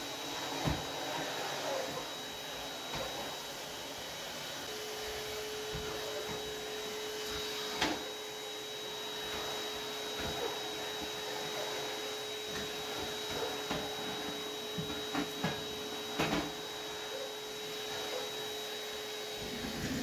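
Numatic Henry canister vacuum cleaner running steadily on a hard floor, with a high steady whine over its rushing air. A few sharp knocks sound now and then, the loudest about 8 and 16 seconds in.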